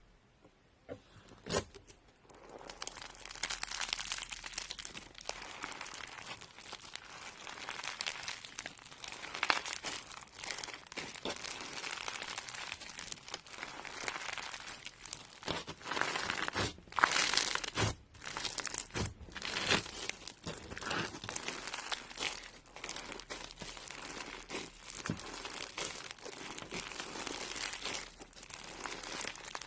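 Crunchy slime being squeezed and worked by hand: a dense, continuous crackling of many small pops and snaps, after a single sharp click about a second and a half in.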